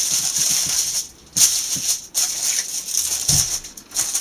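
Aluminium foil crinkling as it is pressed flat and folded around the edges of a wooden board, in bursts of about a second with short pauses between.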